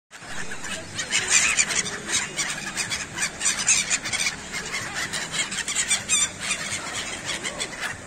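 A flock of gulls calling over one another in shrill squeals while being fed, many short calls close together, busiest in the first half.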